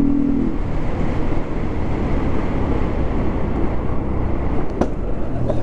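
Motorcycle on the move, its engine running under a steady rush of wind and road noise on the rider's microphone.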